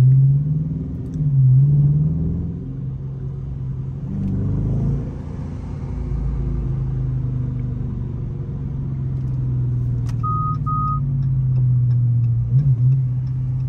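Dodge Charger R/T's 5.7-litre HEMI V8, heard from inside the cabin, pulling through traffic in sport mode, its low engine note dipping and rising with gear changes in the first few seconds. Near the end, two short electronic beeps and a run of regular ticks.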